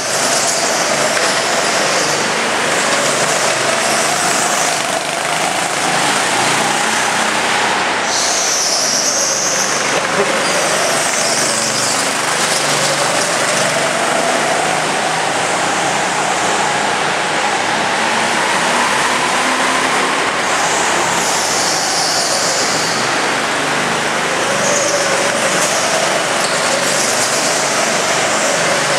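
Go-kart engine running hard, its pitch rising slowly and falling again several times as it accelerates out of the corners and backs off into the next.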